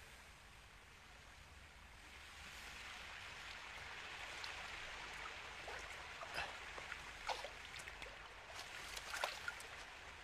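Faint running water, like a stream or trickle, growing a little louder after about two seconds, with a few short sharp sounds from about six seconds in.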